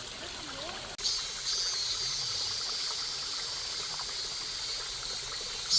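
Mountain valley stream running steadily over rocks, with a steady high-pitched buzz joining it after an abrupt change about a second in.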